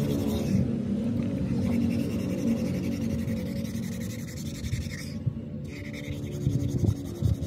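A tractor wheel's steel rim being scrubbed by hand: a run of irregular rubbing and scraping strokes, with sharper strokes near the end.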